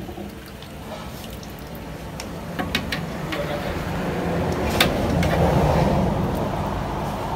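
Metal ladle stirring and scooping soup in a large aluminium pot: several sharp clinks of ladle on pot, and liquid sloshing that swells about four to six seconds in.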